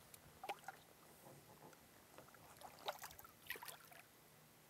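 Near silence on a fishing boat, broken by a few faint, short taps and light water sounds; the loudest comes about three seconds in.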